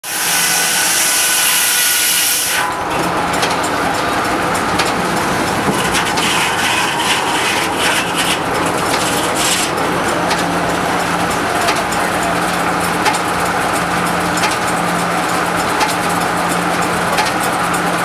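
A 60-inch circular sawmill blade cuts through a log with a loud, high-pitched scream for about the first two and a half seconds. The scream then drops away and the mill runs on with a steady hum, marked by frequent short knocks and clatter.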